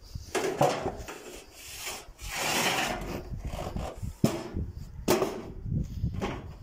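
Irregular rubbing and knocking handling noise, with a hissing swell about two seconds in and a single sharp knock a little past four seconds.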